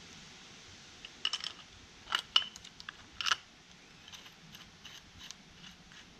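Sharp metal clicks and clinks of a Farmall H engine's steel connecting rod cap, with its new bearing insert, being handled and fitted onto the rod bolts. The clicks come in three quick clusters, the loudest about two seconds in, then fainter ticks follow.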